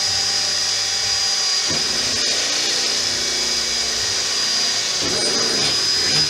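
Electric drill boring a hole through the car's multi-layer sheet-steel body for a rivet: a steady high whine that stops at the very end.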